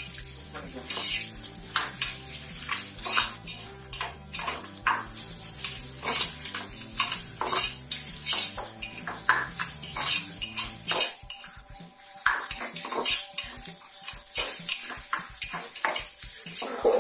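Slotted steel spatula scraping and clinking irregularly against an aluminium pressure cooker while stirring onions and ginger-garlic paste, with a light sizzle of the frying underneath. The paste is being fried until its raw smell goes.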